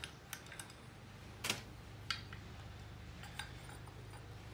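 A few light metallic clicks and clinks from handling a Lie-Nielsen No. 62 low angle jack plane as its bronze lever cap is taken off and set down, the sharpest about a second and a half in.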